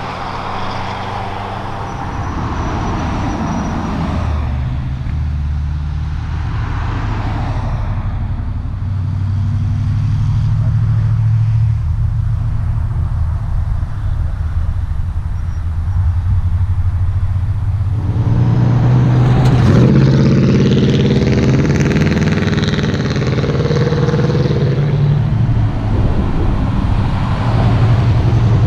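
Ford Mustang GT's V8 engine driven hard, its note stepping up and down in pitch through the gears. It gets louder and harsher under acceleration from about two-thirds of the way in.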